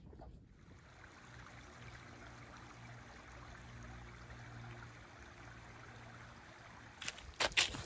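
A steady rushing noise with a faint low hum under it. About seven seconds in, a hiker's footsteps crunch on dry leaf litter.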